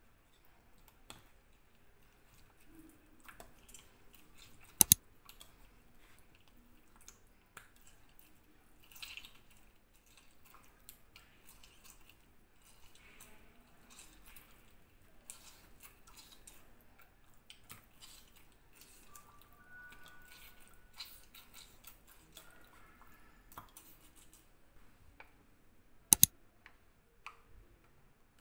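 Quiet handling sounds of hands working raw pork slices in a ceramic bowl: soft squishing and rustling with scattered light clicks, and two sharp, much louder clicks, one about five seconds in and one near the end.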